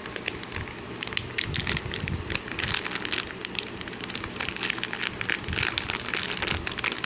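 Thin clear plastic candy wrapper crinkling and crackling in quick, irregular clicks as fingers untwist and pull it open.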